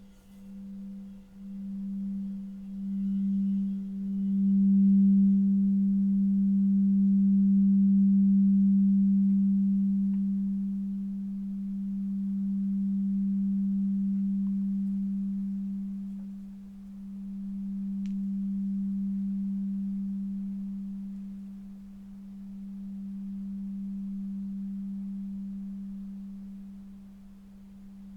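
A singing bowl rimmed with a mallet gives one low, near-pure tone. The tone builds in short pulses over the first few seconds, then swells and fades in slow waves about every five seconds.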